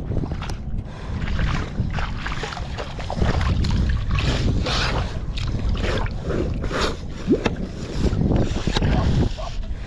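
Water splashing and sloshing irregularly as a bait pump is rinsed out in creek water, with wind rumbling steadily on the microphone.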